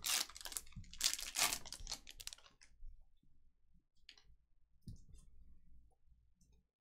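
Foil wrapper of a trading-card pack crinkling and tearing open for the first two seconds or so, then a few faint ticks as the cards are slid out and handled.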